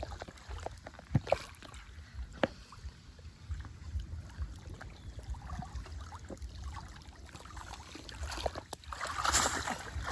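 Water sloshing and splashing, with a few sharp knocks early on and a louder burst of splashing near the end, over a steady low rumble.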